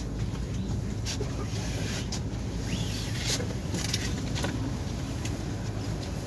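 Tram running along the track, heard from inside the passenger car: a steady low rumble with a few short clicks and knocks.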